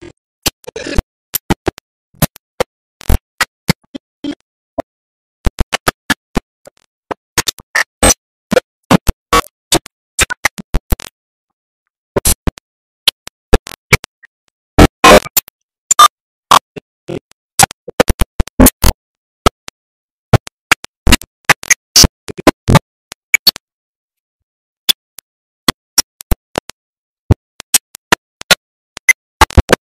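A music track breaking up into irregular, very short loud snatches and crackles with silent gaps between them, a dropping-out, corrupted audio signal.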